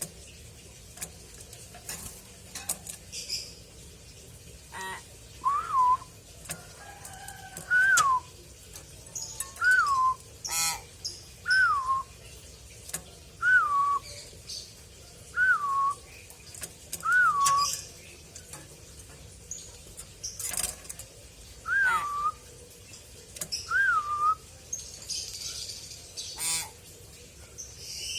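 Hill myna whistling the same short note over and over, a quick rise and fall in pitch, about nine times at roughly two-second intervals. A few harsh, raspy calls and clicks fall in between.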